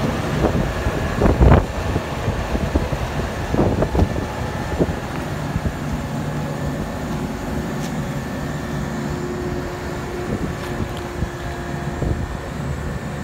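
Tracked asphalt paver's diesel engine idling steadily, with a few loud thumps of wind on the microphone in the first four seconds.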